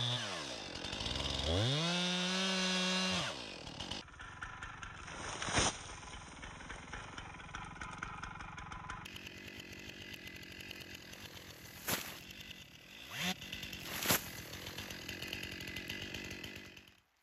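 Stihl MS 261 C-M two-stroke chainsaw revving up and back down twice, its pitch rising and falling, for the first three seconds. After that the saw is gone and a quieter outdoor background is left, with a few sharp clicks.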